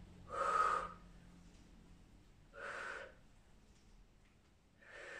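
A woman breathing out hard three times, about two and a half seconds apart: exertion breaths paced with her bodyweight squats.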